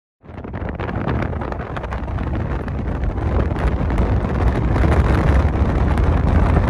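Wind buffeting a phone microphone outdoors: a heavy, rumbling roar with a hiss over it. It starts abruptly just after the beginning out of silence and grows slowly louder.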